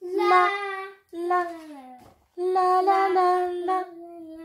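A woman's voice singing the syllables 'la-la-la, la-la-la' to a short wordless tune: a held note, a falling one, then a quick run of syllables ending on a long held note.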